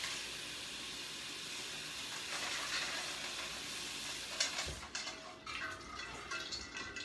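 Cold water running from a kitchen tap into a bowl of ice as a steady rush, shut off about five seconds in, followed by a few light clinks and knocks.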